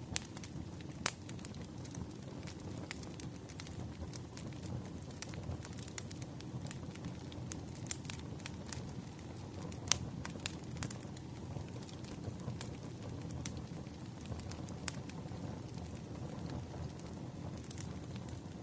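Campfire crackling: a steady low rumble of burning wood with irregular sharp pops and snaps.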